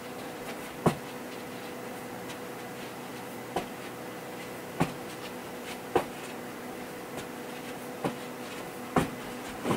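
Feet thumping on a hard floor as a person does kicks, about seven short knocks at irregular intervals, over a faint steady room hum.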